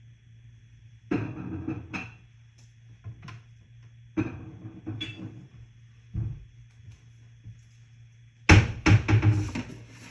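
Objects being handled and set down: four bursts of knocking and clattering, the loudest near the end, over a steady low hum.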